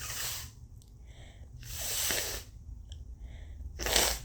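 Three forceful blasts of air through a heavily congested, snotty nose: a short one at the start, a longer one in the middle, and the loudest just before the end.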